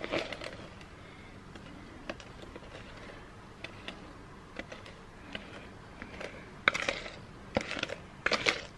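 Light scrapes and taps of a utensil against a mixing bowl as thick brownie batter is poured and scraped into a baking pan, with a few sharper clicks near the end.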